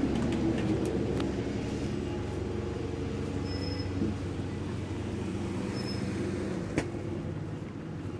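London bus running along the road, its engine giving a steady low drone whose pitch shifts slightly, with one sharp click about two-thirds of the way through.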